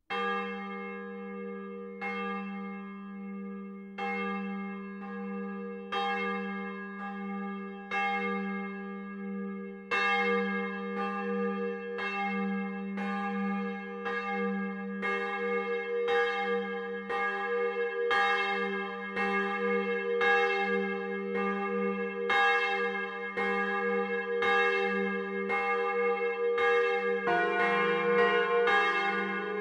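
Three church bells tuned d', f', g' ringing close up in the belfry, their clappers swinging against the bronze. One bell strikes about every two seconds at first, a second bell joins about ten seconds in, and a deeper third bell comes in near the end as the full peal builds up.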